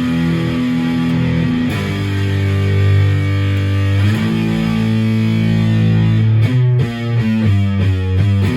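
Maverick Chaos 2 HT electric guitar through a Brown Creature distortion pedal, playing three long sustained distorted chords, then a faster chugging riff of short notes near the end.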